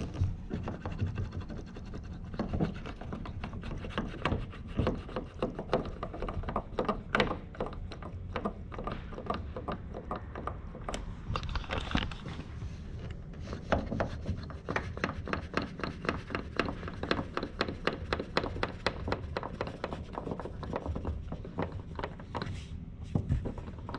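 SeaSucker vacuum-cup mounts being handled and their hand plunger pumps worked to draw the pads down: a run of quick clicks and knocks, with rubbing against the mounts.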